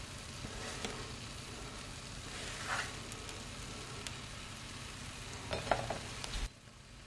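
Egg-and-potato tortilla sizzling steadily in a hot frying pan on the stove's leftover heat, with a few light taps as chopped vegetables are scattered on. The sizzle cuts off suddenly near the end.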